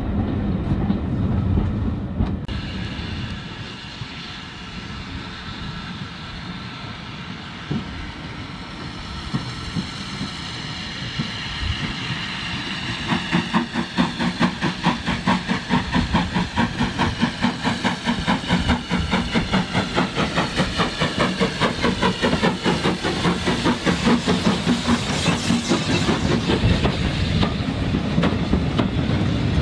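Rumble of a moving train for the first two seconds. Then a steam-hauled train draws up, and its coaches roll past close by from about halfway, with the wheels giving a fast, even clickety-clack over the rail joints.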